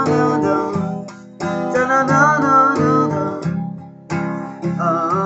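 Acoustic guitar strummed as a song accompaniment, with fresh chords struck about a second and a half in and again about four seconds in, each ringing and fading.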